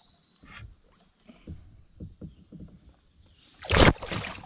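A few faint knocks and water sounds, then a sudden loud splash about three and a half seconds in as a released smallmouth bass kicks free of the hand and swims off.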